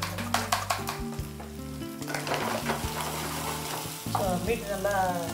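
A fork beating eggs in a bowl, a quick run of clicks against the bowl that stops about a second in. Then chicken stuffing frying in oil in a pan, sizzling as it is stirred, with a few squeaky scrapes of the spatula near the end.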